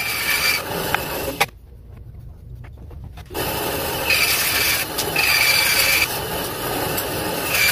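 Bandsaw cutting through a piece of cedar to square up the rough stock, the blade rasping through the wood. There are two spells of cutting: a short one ending in a sharp click about a second and a half in, then a quieter break, then a longer one from about three seconds in.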